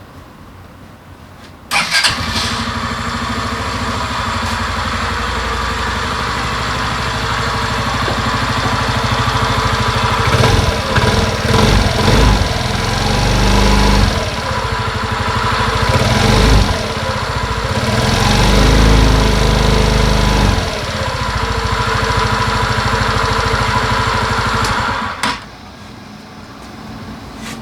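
Suzuki Address 125 scooter's single-cylinder engine starting about two seconds in and running. It is revved up and down several times in the middle and shut off near the end.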